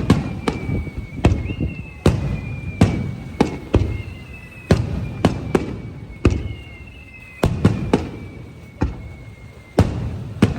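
Aerial fireworks bursting in quick, irregular succession: sharp bangs, often two close together, each followed by a low rumble. A thin, high whistle that sinks slowly in pitch sounds three times between the bursts.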